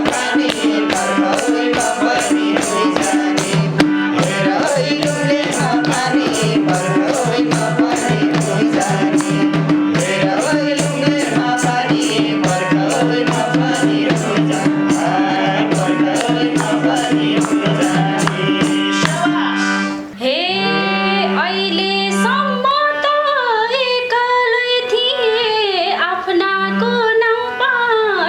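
Nepali dohori folk music: an instrumental interlude of quick, steady hand-drum beats over sustained held notes. About twenty seconds in the drumming stops, and a melodic line that sounds like a woman singing begins over a held drone.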